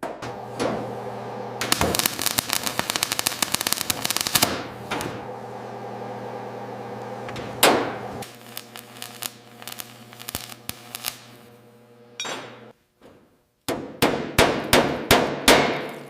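Metal clanking and hammer strikes on metal, with a steady low hum underneath. A quick clattering run starts about two seconds in, single clanks follow, the hum stops near the three-quarter mark, and a run of about six sharp strikes comes near the end.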